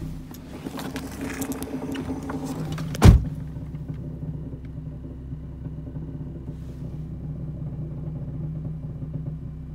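BMW E46's M54 straight-six engine running steadily at idle. Over the first three seconds there are irregular clicks and rattles, ending in a single loud thump about three seconds in. The owner hears these knocking and rattling sounds as strange, and their cause is not known.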